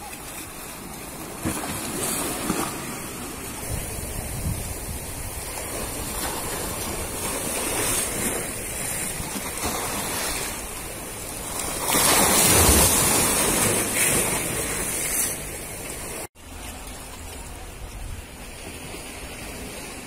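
Sea waves washing and splashing against shoreline boulders, surging in several swells, the loudest about twelve seconds in. A sudden break about sixteen seconds in, then a quieter, steady wash of water.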